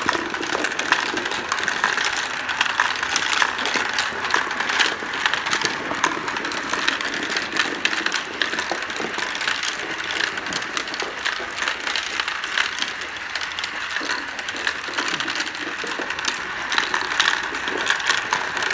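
Many marbles spinning round and round inside clear plastic marble-run funnels: a steady rolling whir with dense small clicks as they knock against the plastic and each other.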